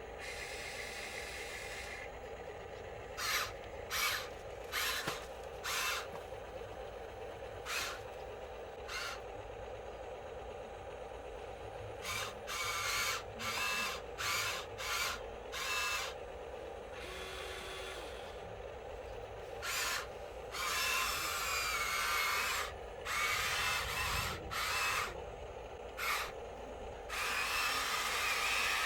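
Small electric motors of radio-controlled construction models whirring in short bursts over a steady hum. The bursts are brief and spaced at first, then longer and more frequent, running almost continuously near the end.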